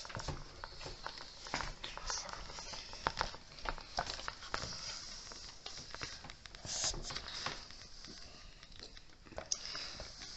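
Handling noise from hand-tightening coax cable connectors onto the antenna: irregular small clicks, taps and rustles of parts being handled, with a couple of brief scraping rustles near the end.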